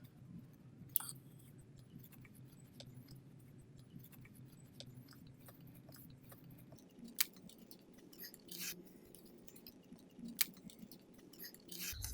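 Faint handling noise of hands working ribbon, pipe cleaner and grapevine: scattered small clicks and rustles, with a few sharper ticks. A low hum underneath stops about seven seconds in.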